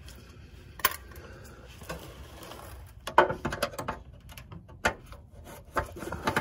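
Scattered light clicks and clinks of a hand tool and metal parts being handled while the 8 mm bolt on the fuel filter bracket is undone. They come at irregular moments, with a short cluster a little after the midpoint.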